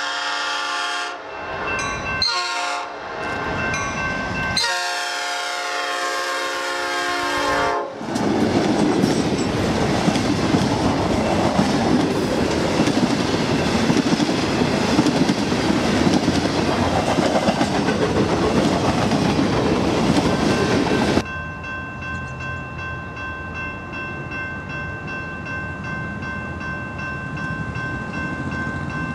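Diesel freight locomotive horn sounding several blasts for a grade crossing, the last one long. Then the freight passes close by with loud wheel and rail rumble from its tank cars and boxcars, until a sudden cut to a quieter scene where a GE AC4400CW's horn sounds steadily as its train approaches.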